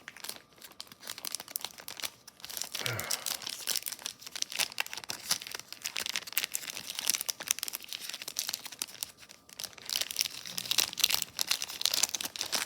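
Plastic cellophane wrapper of a vintage Topps trading-card rack pack crinkling and tearing as it is opened, with the cards rustling, in a continuous run of crackles.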